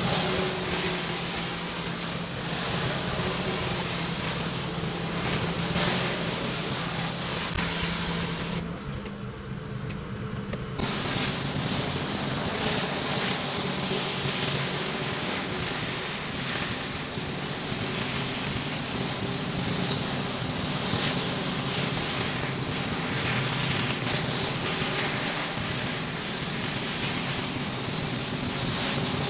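Pressure washer spraying water onto a concrete driveway, a steady hiss over the machine's engine hum. The spray drops away for about two seconds around nine seconds in, then resumes.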